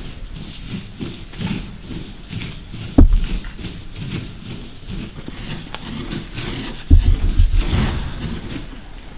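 Footsteps on pavement, about two a second. A sharp thump comes about three seconds in, and a heavier rumbling knock follows around seven seconds.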